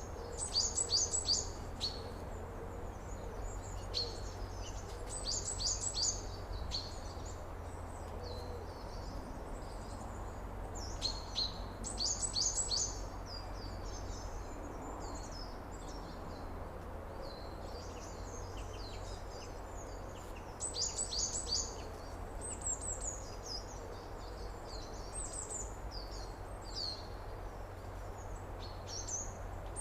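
Birds singing and chirping in a summer outdoor ambience, one repeating a quick phrase of four or five high, falling notes several times, over a steady low rumble.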